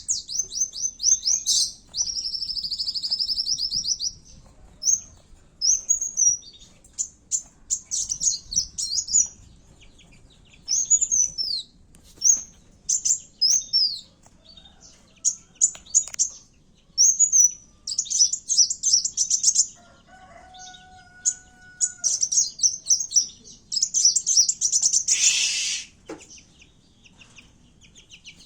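Kowul (kolibri wulung) sunbird singing in fighting mode: rapid, high-pitched chirps and trills in short bursts with brief pauses between them. A faint steady tone is heard partway through, and a harsher, louder chirp comes near the end.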